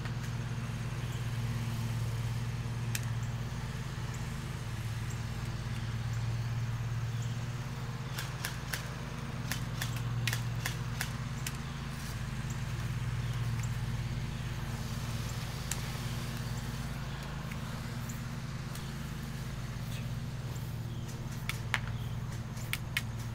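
A steady low motor hum with scattered sharp clicks: a few at a time about a third of the way in, and several in quick runs near the end.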